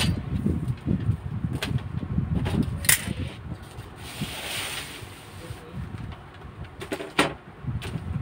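Metal drafting rulers being handled on a paper pattern: a few sharp clicks as they are set down and a brief scrape as one slides across the paper about four seconds in, over a low, uneven background rumble.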